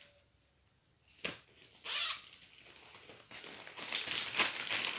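Thin clear plastic packaging crinkling and rustling as it is handled. It starts after a quiet first second with a single sharp click and a short rustle, then runs on as continuous crinkling from a little past halfway.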